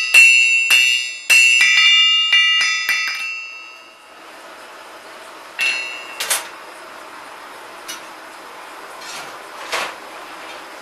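Blacksmith's hammer striking hot iron on an anvil, each blow ringing bright and metallic: heavier blows about every half second, then lighter, quicker taps, about ten in the first three seconds. Then a steady low hiss with a few scattered metal clinks.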